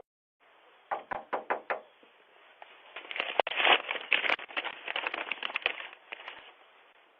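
About five quick knocks a second in, then about four seconds of irregular clicking and rustling. The sound is thin, cut off at the top like a doorbell camera's microphone.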